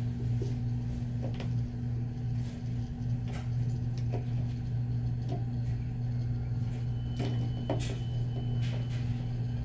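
A steady low hum under scattered light clicks and knocks of a small plastic doll being handled.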